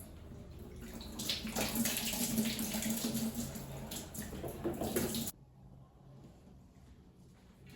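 Water running and splashing, with a steady low hum underneath. It cuts off abruptly about five seconds in.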